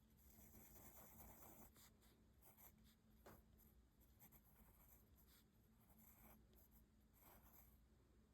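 Faint pencil strokes scratching on paper in short, irregular passes while drawing.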